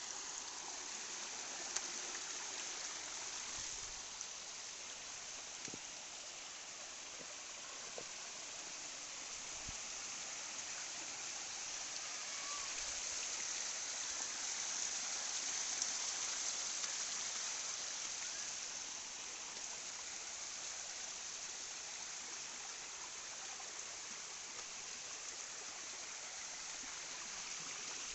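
Waterfall's water falling and running steadily, a continuous hiss that swells a little about halfway through.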